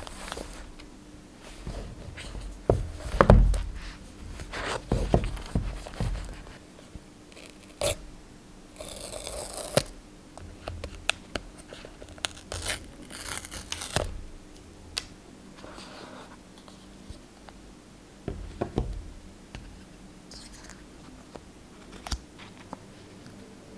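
Hands unboxing a new iPhone in its cardboard retail box on a wooden table: knocks and scrapes of the box being handled, two short tearing sounds about nine and thirteen seconds in as the paper seal strips are pulled off, then lighter clicks and rustles as the lid comes off and the inside is handled.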